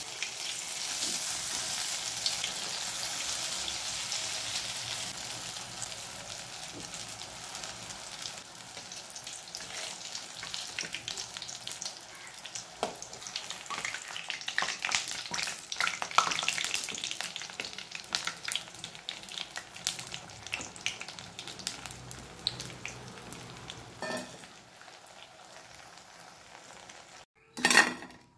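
Idli-batter bondas deep-frying in hot oil in an aluminium kadai: a steady sizzle, loudest in the first few seconds and easing off gradually as they cook. Through the middle stretch there are scrapes and clicks of a slotted steel spatula turning them. Near the end there is a short, sharp metal clatter of the spatula as the fried bondas are lifted into a steel bowl.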